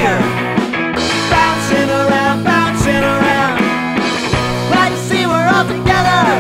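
Rock song played by a full band, with drums and dense held chords at a steady, loud level.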